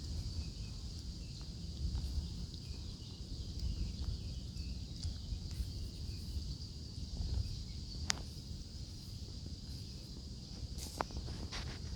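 Outdoor ambience: a steady, high-pitched insect chorus over a constant low rumble, with a few sharp clicks in the second half.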